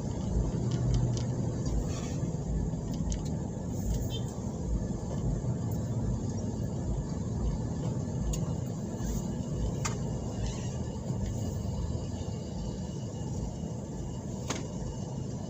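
Steady low rumble of a vehicle engine and surrounding road traffic while stopped in a jam, with a few faint ticks.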